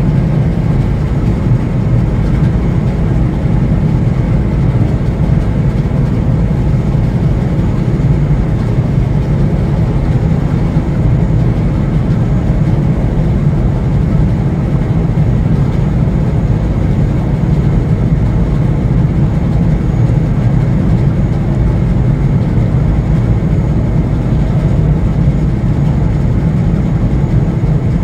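Steady low engine rumble with rushing water from a boat under way, unchanging throughout.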